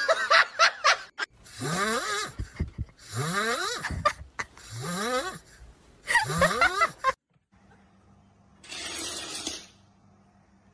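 A sleeping cat snoring: four long snores about a second and a half apart, each rising in pitch. The snoring stops suddenly, and a short hiss follows near the end.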